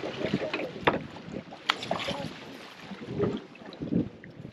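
Water splashing and sloshing against the side of a boat as a hooked fish thrashes at the surface, with wind on the microphone and a couple of sharp knocks.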